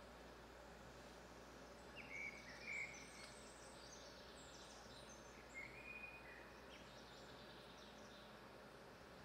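Near silence: faint outdoor ambience with a low steady hum, broken by a few faint bird chirps about two seconds in, near three seconds and just under six seconds.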